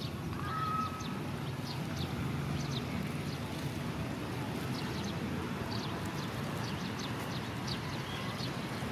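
Outdoor background: a steady low rumble with many short, high chirps of small birds scattered throughout, and a brief steady high tone about half a second in.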